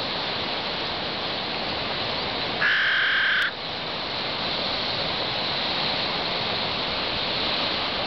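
A crow giving one long caw about three seconds in, over a steady rushing background noise.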